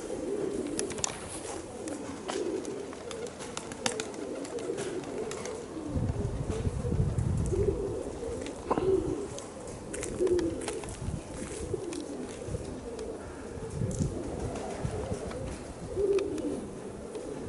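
Domestic pigeons cooing over and over, with strong gusting wind buffeting the microphone as a low rumble from about six seconds in.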